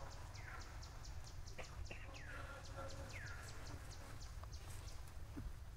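An animal's short calls, three times, each a quick fall in pitch, over a fast, even, high ticking and a low steady rumble.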